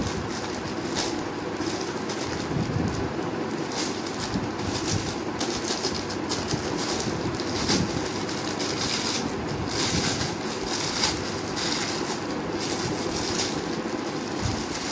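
Thin clear plastic packaging crinkling and crackling as hands handle a bagged fuzzy toy chick and work the bag open, with many quick sharp crackles throughout.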